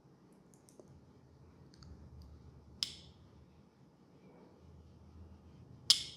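Two sharp cracks made by the masseur during a head and neck massage, about three seconds apart, the second louder, with a few faint small clicks before them.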